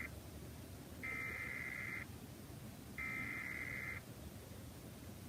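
Emergency Alert System SAME header: buzzy digital data tones in bursts of about a second, two of them a second apart, carrying the coded severe thunderstorm warning. The tail of an earlier burst is heard at the very start.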